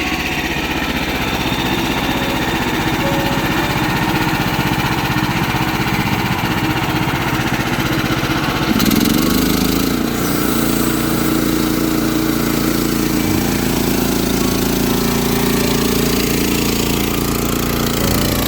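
Portable sawmill's small gasoline engine running steadily. Its pitch dips and recovers about nine seconds in.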